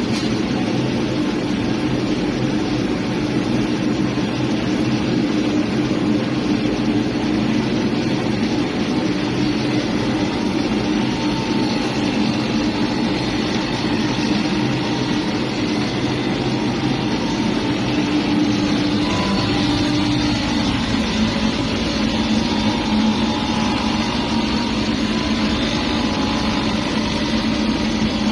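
CNC plastic pipe threading machine running as it cuts a thread into PVC pipe: a steady machine hum whose pitch drops a little about two-thirds of the way through.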